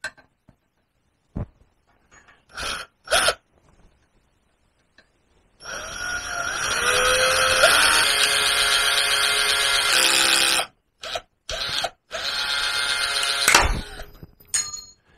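Ryobi cordless drill running into aluminium chequer plate with a small bit that is barely cutting: a steady whine for about five seconds, a couple of knocks, then a second run of about two seconds.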